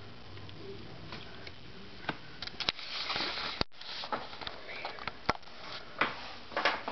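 Handling noise from a handheld camera being moved: scattered sharp clicks and rustling, with a short rushing burst about three seconds in.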